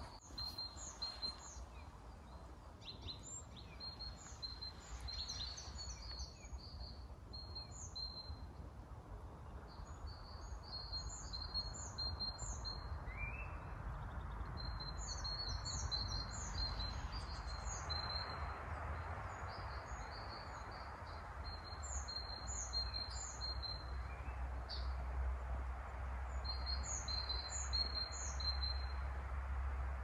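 Small songbirds singing in short, repeated high phrases, several at once, over a steady rushing background that swells about halfway through, with a low rumble growing in the second half.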